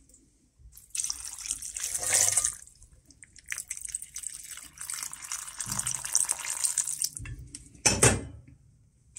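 Kitchen tap running in two spells, water splashing into a pot, then a single knock near the end.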